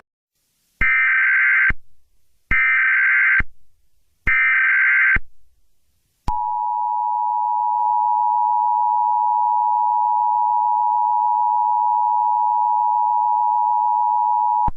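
Emergency Alert System SAME header: three one-second bursts of digital data tones, then, about six seconds in, the two-tone EAS attention signal held steady for about eight seconds, announcing that an emergency alert message follows.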